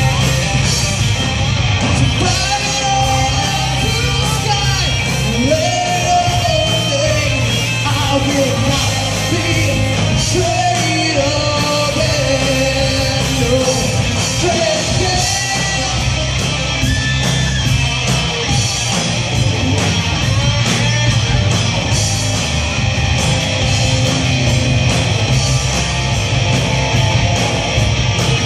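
Live rock band playing: two electric guitars, electric bass and drum kit, with a male lead vocal singing over them for much of the time.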